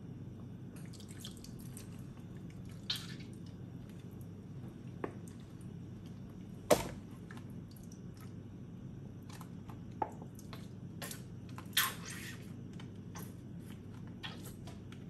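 Cream being poured and squeezed from a carton onto beef strips in a frying pan: soft wet squishing and dripping, with a few sharp clicks, the loudest about seven seconds in. A steady low hum runs underneath.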